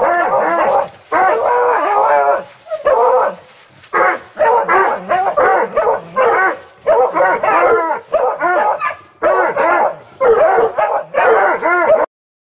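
A pack of hunting hounds, beagles among them, baying and yelping in overlapping bursts as they give tongue at a crevice in the rocks. The calls stop abruptly near the end.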